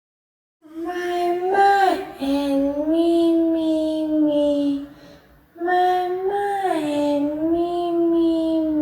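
A high singing voice holds long, slightly gliding notes in two phrases, with a short pause about five seconds in.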